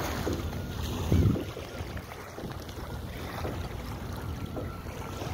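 Wind rumbling on the phone's microphone at the sea's edge, over small waves washing on a stony shore, with one louder bump about a second in.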